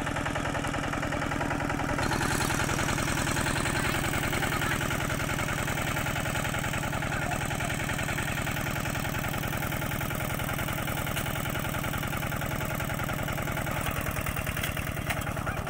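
Tractor engine running steadily with an even, rapid firing pulse, growing a little louder about two seconds in.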